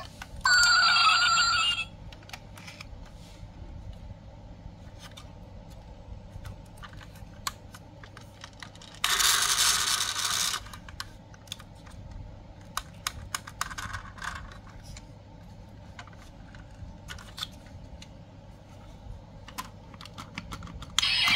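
Light clicks and taps of a diecast model car being handled: turned over in the hands and its gullwing doors and hatch opened. Three louder sounds of a second or two stand out, near the start, around the middle and at the very end.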